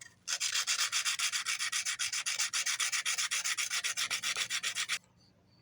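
Sanding a balsa-wood fishing lure, its cracks filled with hardened super glue and baking soda: quick, even back-and-forth scratchy strokes, about six a second, that stop suddenly near the end.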